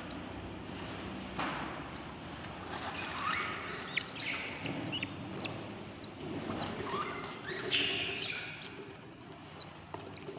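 Baby budgies in a nest box, about 25 days old, chirping and chattering: a stream of short, high chirps, several a second, over a rough, noisy chatter.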